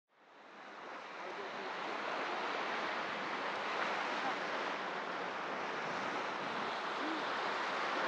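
Small sea waves breaking and washing onto a sandy beach: a steady hiss of surf that fades in over the first couple of seconds.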